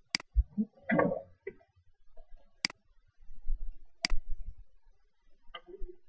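Three sharp clicks of a computer mouse button, spaced a second or two apart, with a short muffled noise about a second in and faint low knocks.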